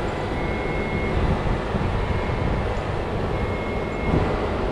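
Steady low rumble of heavy lifting equipment running during a tandem crane pick, with a machine's warning alarm giving three long, evenly spaced high beeps.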